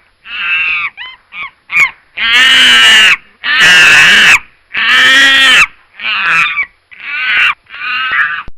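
An animal giving a series of loud, harsh honking calls, about nine in all; the three in the middle are the longest, about a second each.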